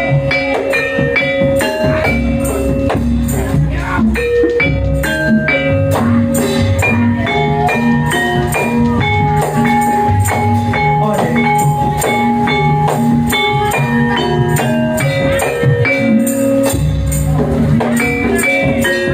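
Lively band music for dancing: a melody of held notes over a steady drum beat, with a bright jingling percussion keeping time.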